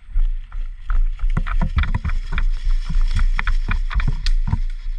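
Running footsteps and rattling gear, with irregular knocks several times a second and a low rumble of wind and handling on a body-worn camera's microphone.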